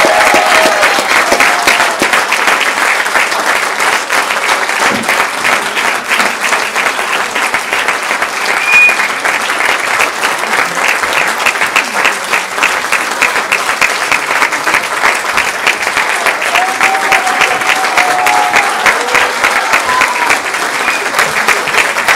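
Theatre audience applauding at a curtain call. About halfway through the clapping falls into a steady rhythm in unison. A brief whistle comes about nine seconds in, and a few voices call out near the end.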